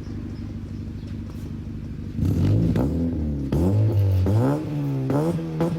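Honda Civic FD engine idling with a low, steady rumble, then revved several times about two seconds in, the pitch rising and falling with each blip.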